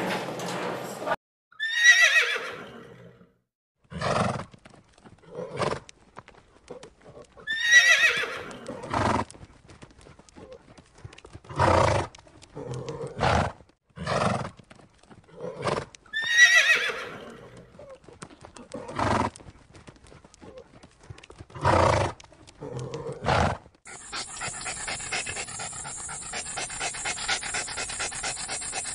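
Horse whinnying three times, each a long high call falling in pitch, with short sharp sounds between the calls. About three-quarters of the way through, this gives way to a dog panting fast and steadily over a faint hiss.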